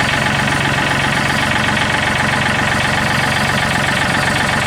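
Tractor engine running steadily while its front loader is being worked.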